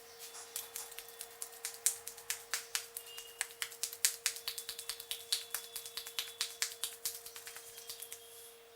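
A barber's fingers snapping and clicking during an Indian head massage: a rapid run of sharp clicks, several a second, that stops shortly before the end. A steady faint hum runs underneath.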